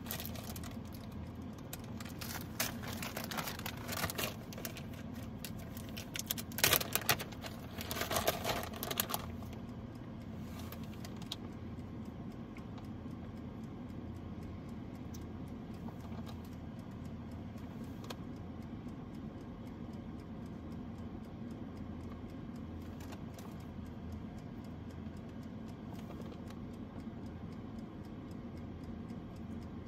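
Packaging rustling and crinkling as pizza toppings are handled and spread by hand, in bursts during the first ten seconds or so, then only a few faint ticks. Under it, the steady hum of an air fryer running as it preheats.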